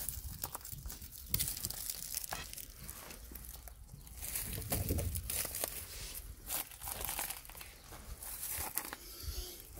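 Irregular rustling and crinkling of dry straw and plastic litter, with scattered small clicks and a soft low thump about five seconds in, as the donkey's hoof is shifted and handled.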